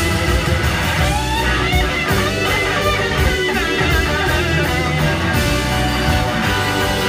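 Live band playing loudly, led by an electric guitar solo whose notes slide and bend up and down from about a second in to about four seconds in, over bass and drums.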